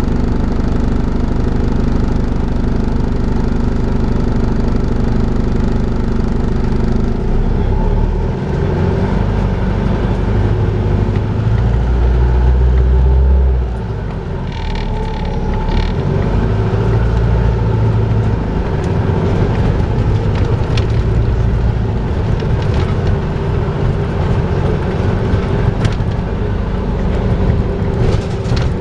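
Volvo B5LH hybrid double-decker bus running with its steady vacuum-cleaner-like 'hoovering' drone. Its note changes about seven seconds in, and a deeper rumble builds a little before halfway, then falls away suddenly. A brief higher-pitched sound and some light rattles follow.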